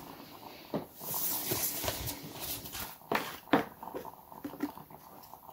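Tarot cards being gathered up off a wooden table and shuffled: a papery rustle of about two seconds, then a couple of sharp taps.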